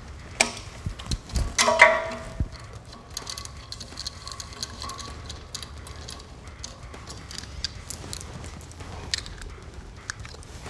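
Scattered light metal clicks and rattles as a Cold Steel Finn Wolf folding knife is handled at the clamp of a test rig.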